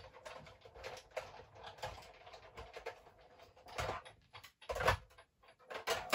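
A die-cutting machine whirring with a faint steady hum, cutting a card sentiment with a metal die. Irregular clicks and knocks run over the hum, with a few louder knocks in the second half.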